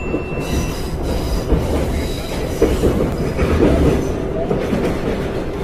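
Subway train running: the steady rumble of the metro car in motion, with brief high squeals from the wheels coming and going. A short electronic chime rings out over the first second.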